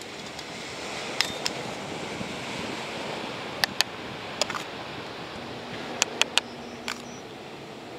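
A metal spoon clinking and scraping against a stainless steel camp pot and bowl in a series of sharp taps, several in quick succession, as rice is served. Behind it is a steady wash of surf.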